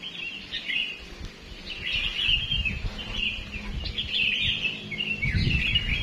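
Many small songbirds chirping and calling together in a dense, overlapping chorus, with a low rumble on the microphone underneath.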